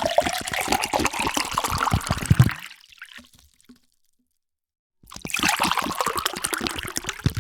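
Water poured into a vessel in two separate pours, the second starting about five seconds in. Each pour has a note that rises as the vessel fills.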